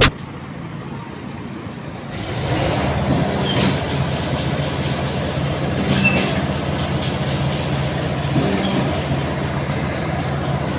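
An engine running steadily: a low hum under a mechanical noise that grows louder about two seconds in.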